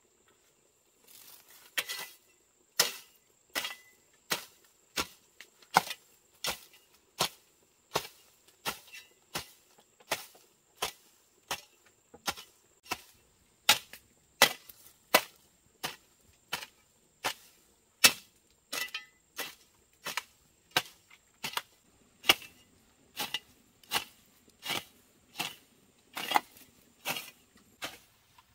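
Steady, repeated strikes of a hand tool, such as chopping or hammering, with a sharp impact about every three quarters of a second, starting about two seconds in.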